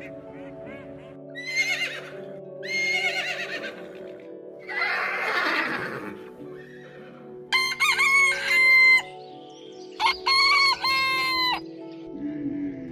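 Rooster crowing twice, loudly, over steady background music, after a few shorter animal calls in the first half, one of them a long call falling in pitch.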